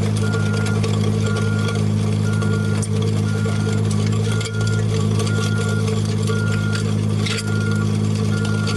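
A construction machine's engine running steadily while its reversing alarm beeps, one beep about every second, with occasional clanks and knocks of the machine at work.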